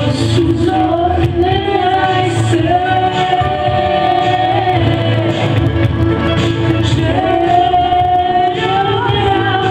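A woman singing into a microphone over instrumental accompaniment, holding several long notes of a second or two each.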